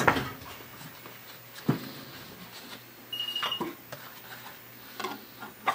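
Handling noise of a roll of 3-inch carpet binding tape set on a binding machine's spool tray and its end pulled off: a few light knocks and taps with soft rustling of the tape. A brief high-pitched beep sounds about three seconds in.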